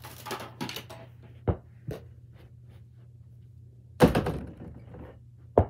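A mini basketball strikes the backboard and rim of an over-the-door hoop about four seconds in, a missed shot, with a rattle trailing after the bang. A few light taps come before it, and a second sharp thud follows near the end.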